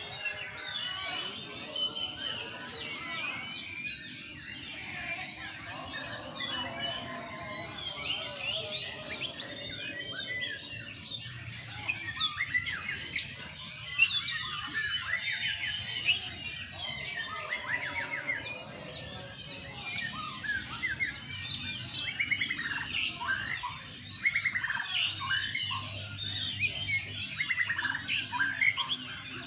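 Several caged songbirds, white-rumped shamas among them, singing over one another: a dense, continuous mix of whistles, chirps and fast trills. A sharp click about halfway through is the loudest moment.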